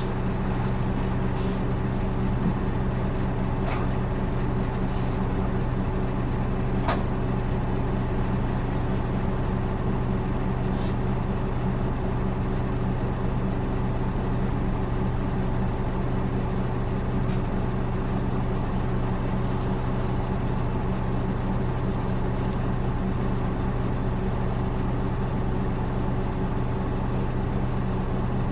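Diesel engine of a UD Space Runner RA city bus (PKG-RA274MAN) running steadily, heard inside the passenger cabin as an even low hum. This bus's engine note is unusual and differs from other buses of the same type.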